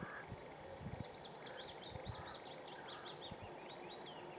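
A songbird singing a quick run of varied high, sweeping notes, over a faint steady background haze with a few short low thumps.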